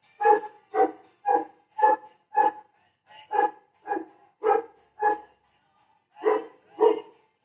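A dog barking repeatedly: about a dozen short barks, roughly two a second, with a brief pause in the middle and another shortly before the end.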